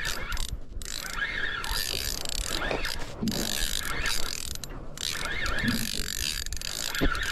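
Spinning reel being cranked to wind in line against a hooked fish, its gears and ratchet whirring and clicking without a break.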